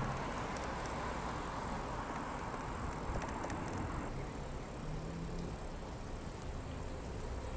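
Steady rushing noise of a Biki bike-share bicycle being ridden along a city street, with the wind and passing traffic picked up by a handheld phone; the rush eases a little about four seconds in.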